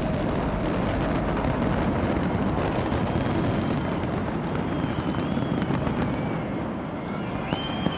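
Dense fireworks barrage: a continuous booming rumble with many sharp crackles, and a few high whistling tones in the second half.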